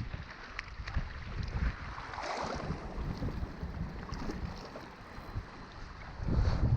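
Wind buffeting the microphone with a low rumble, with scattered small clicks and knocks around an open fishing boat on a lake.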